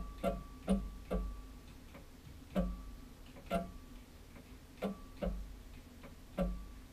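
CNC router axis stepper motor making a series of short jog moves, each a brief buzzing hum. There are about eight of them at uneven intervals, closer together at the start and more spread out later.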